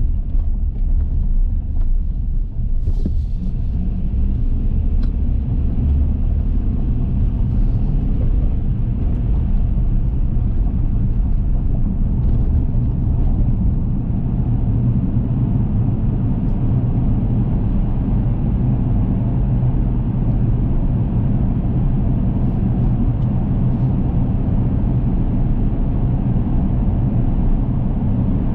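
A car driving, giving a steady low rumble of engine and tyre noise. About halfway through, the car enters a road tunnel and the low rumble fills out.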